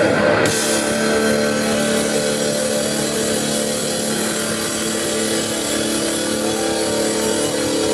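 Distorted electric guitars holding one long, steady chord ringing out at the end of a live hard rock song, with no drums.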